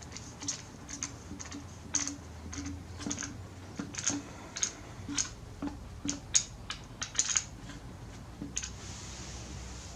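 Irregular light clicks and taps of small hard parts and a hand tool being handled, one or two a second, some in quick pairs, during reassembly of a small two-stroke trimmer engine's carburetor.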